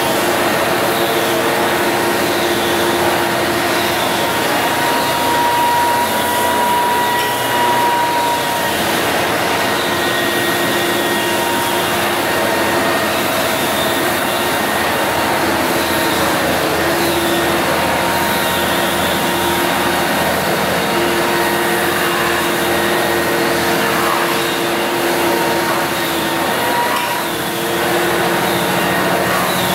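Drum floor sander running steadily as it sands down old parquet flooring, with a small corded power tool running along the wall edge at the same time. A steady machine noise with a few held tones that fade in and out.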